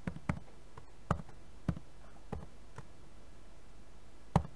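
Computer keyboard keys pressed one at a time, slowly: about seven separate sharp clicks spread over a few seconds, with the loudest near the end.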